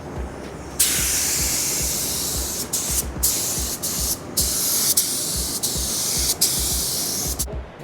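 Black Widow HTE (high transfer efficiency) paint spray gun hissing as compressed air atomises a base coat of paint. The hiss starts about a second in, cuts out briefly several times as the trigger is let off, and stops just before the end.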